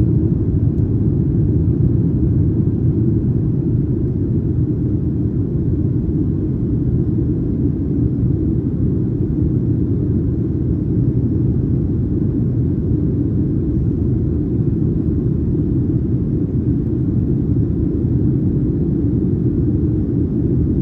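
Steady low rumble inside the cabin of a Boeing 737-900ER in flight: its CFM56-7B engines and the airflow along the fuselage, heard from an economy window seat.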